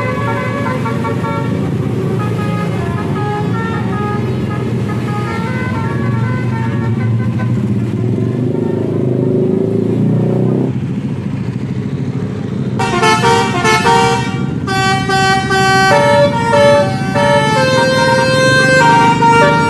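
Bus with a multi-tone Basuri telolet horn playing a melody of stepping notes over the bus's running engine. The tune is faint at first, then loud from about 13 seconds in.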